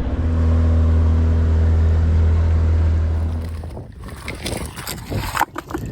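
A motor's steady low drone, which fades out quickly about three and a half seconds in, followed by irregular crackles and knocks.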